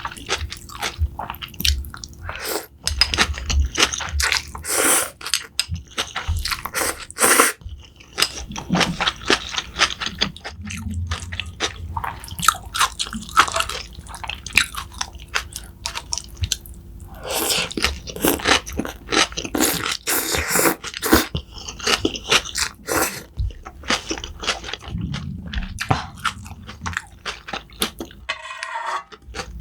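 A person chewing and biting crunchy food close to the microphone, with dense, irregular crackling crunches and brief pauses between mouthfuls.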